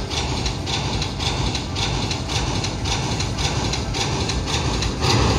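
Slot machine's win-tally sound effect: a rhythmic clacking, about two beats a second, while the bonus total counts up.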